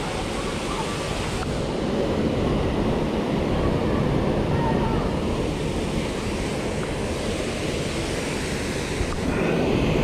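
Waterfall pouring steadily, a dense rushing of falling water.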